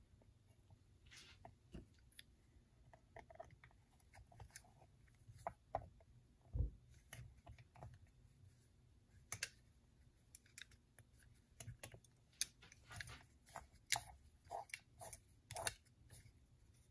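Faint, irregular light clicks and small metallic taps as a pull starter is fitted onto an 80cc two-stroke bicycle engine's side cover and its screws are driven in with a screwdriver. The clicks come more often in the last few seconds, with one dull knock near the middle.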